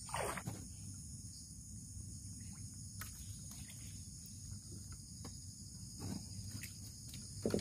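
Steady, high-pitched chorus of forest insects, with rustling and bumping from the camera being handled, loudest just after the start and again near the end.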